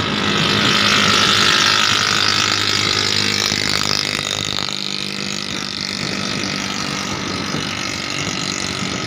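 Vehicle on the move: a steady low engine hum under a rushing road and wind noise, loudest in the first few seconds.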